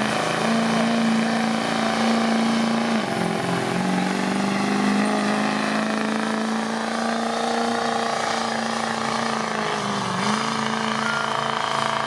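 A pulling vehicle's engine running loud at a steady pitch, which dips briefly twice: about three seconds in and again near ten seconds.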